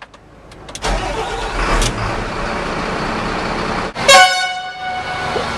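A heavy vehicle engine runs with a loud, steady rumble. About four seconds in, a horn gives one short, loud blast.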